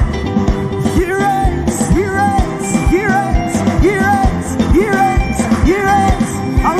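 Live gospel praise music: a band with a steady drum beat under a choir and crowd singing short phrases that repeat about once a second.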